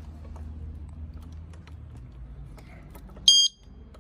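Alarm disc lock being handled on a motorcycle brake disc: light clicks and taps of the lock and key, then about three seconds in a single short, high electronic beep from the lock.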